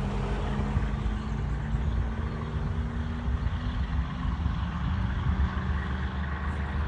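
Diesel engine of a 400-odd horsepower Scania T-cab tipper lorry running steadily as the truck pulls away, a low, even purring.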